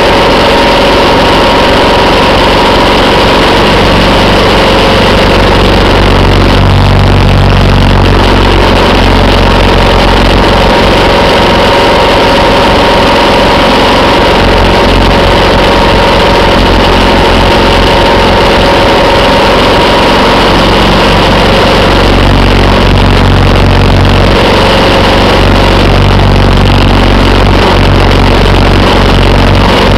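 Motorcycle engine running at a steady cruising speed, with heavy wind rush on the microphone. The wind swells a few times.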